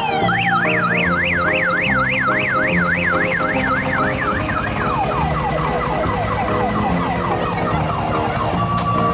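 Electronic siren sound effect, the kind played through an odong-odong's loudspeaker, wailing rapidly up and down. About halfway through it changes to a run of quick falling whoops, about three a second. Music with steady changing notes plays underneath.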